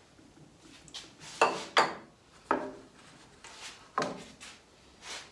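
A half-length of PVC conduit being handled and turned over on a metal table saw top, giving a few hollow plastic knocks and clatters with short rings. The loudest come in quick pairs about a second and a half in, then single knocks at about two and a half and four seconds.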